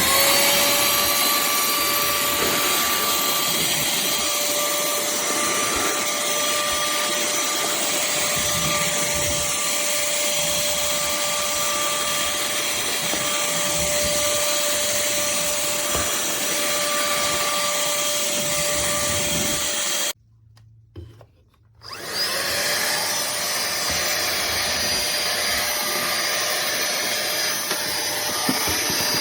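Pemacom cordless handheld vacuum cleaner running with a steady motor whine over the rush of air. About two-thirds of the way through it is switched off, then switched back on a second or two later, and the whine rises as the motor spins up again.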